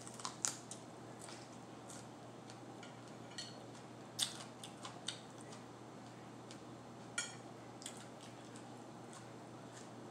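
Chewing a raw mini sweet pepper stuffed with cream cheese: scattered crisp crunches and mouth clicks, the sharpest about four seconds in and again about seven seconds in.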